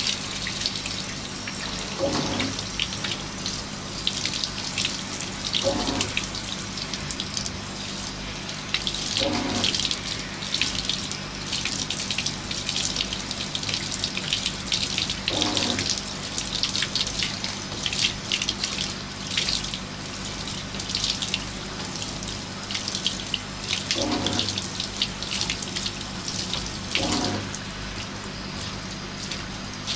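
Handheld shower head spraying water over a dog's coat, running steadily with constant spattering and splashing into the bathtub.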